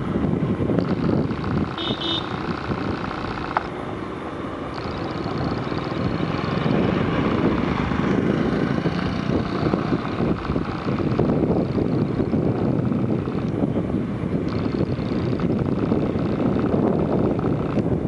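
Small motorcycle engine running at a steady cruise while riding along a road, mixed with rushing wind noise on the microphone.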